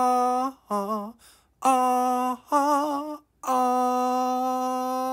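A single unaccompanied voice sings a short wordless "ah-ha" tune. It gives four brief wavering notes with short gaps between them, then from about three and a half seconds in holds one long steady note.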